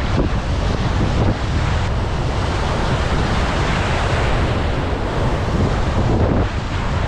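Surf breaking and washing up a sandy beach in strong wind, with the wind buffeting the microphone as a heavy, steady rumble.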